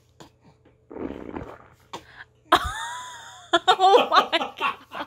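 A baby's fart, followed by a burst of laughter.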